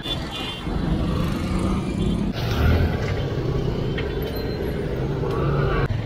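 A motor vehicle engine running steadily, mixed with road traffic noise. Its pitch shifts slightly a little past two seconds.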